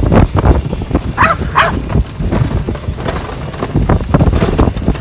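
A dog barking twice in quick succession, over a loud, uneven low rumble.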